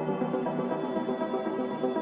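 Ambient meditation music: layered sustained tones with a soft, shimmering pulse, steady in level.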